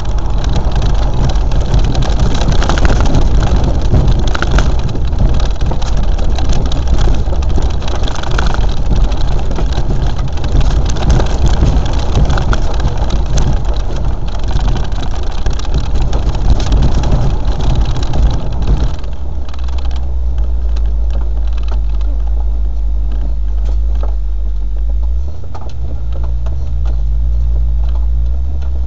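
Land Rover engine running with heavy noise and clatter over it. About two-thirds of the way through the noise drops away, leaving a steady low engine note.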